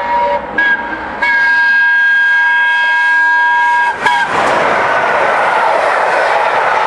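The whistle of the Peppercorn A1 Pacific steam locomotive 60163 Tornado, sounding two short toots and then a long blast of several tones lasting about three seconds. It cuts off about four seconds in as the locomotive and its coaches rush past close by at speed, with a loud, steady roar of wheels on rails.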